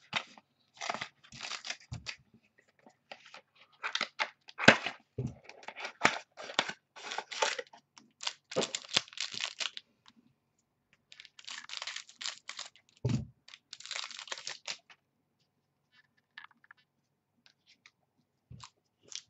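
A trading-card pack wrapper crinkling and tearing as it is opened, with the cards rustling as they are handled, in many short bursts.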